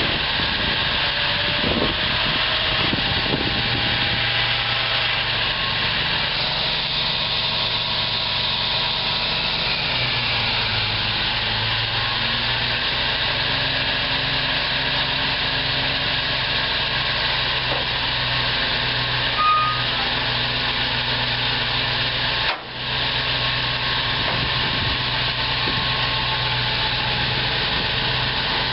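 1998 GMC C6500 truck's engine running steadily at idle, powering the hydraulics that raise the scissor-lift dump bed. There is one brief break in the sound about two-thirds of the way through.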